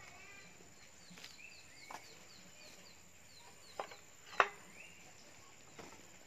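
Faint outdoor bird chirping, a quick run of short repeated chirps, with a single sharp knock about four seconds in.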